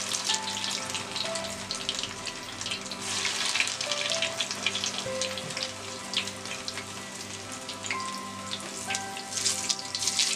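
Breaded chicken spring rolls deep-frying in a pan of well-heated oil: a steady sizzle full of sharp crackles that starts as the first roll goes in and swells about three seconds in.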